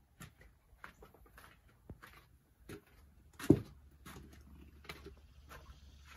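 Footsteps and scattered light clicks of someone walking, with one loud thump about three and a half seconds in.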